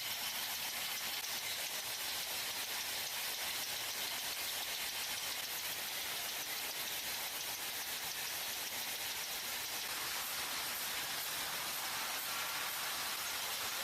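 Steady, even hiss of battery-factory machinery running, high-pitched and unchanging.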